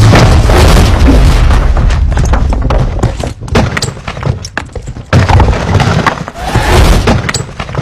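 Deep booming rumble mixed with thuds and knocks, the sound effect of a ship's anchor and chain dragging and ploughing through the seabed. It eases off a little past halfway and swells again twice toward the end.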